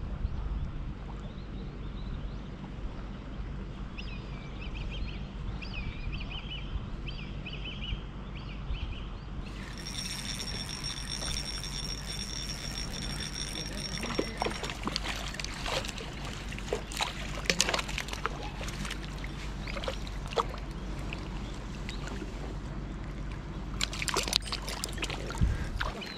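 Water trickling and sloshing over a steady low background hum. About ten seconds in, a louder wash of water sets in, followed by scattered sharp clicks and splashes.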